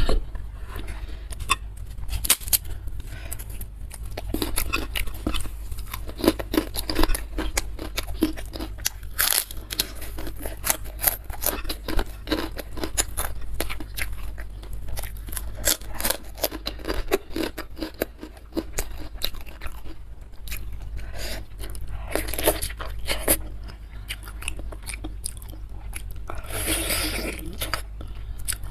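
Close-miked mouth sounds of a person eating beef meatball soup with krupuk crackers: wet chewing and crunching with many small irregular clicks and crackles. There is a longer noisy rush near the end.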